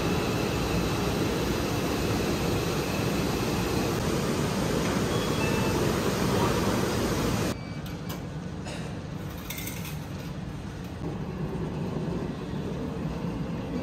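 Steady noise of a moving vehicle, cutting suddenly to quieter background noise about seven and a half seconds in.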